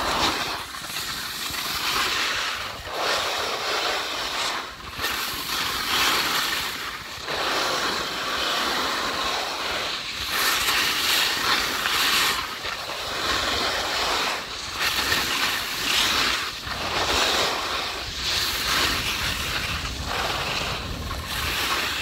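Skis hissing and scraping over snow through a run of turns, the rush swelling and easing every second or two, with wind buffeting the microphone.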